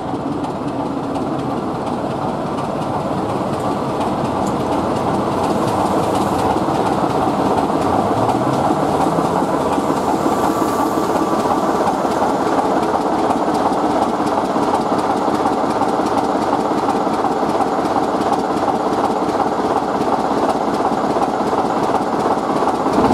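BR Class 24 diesel locomotive's six-cylinder Sulzer engine running as the locomotive draws into the platform and comes alongside. The sound is loud and steady, growing louder over the first few seconds, with a short rising note about eight seconds in.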